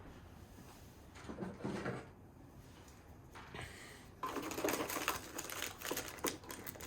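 Packaging being handled during an unboxing: faint rustling at first, then from about four seconds in a busier run of small clicks and rustles as items are taken out of the box.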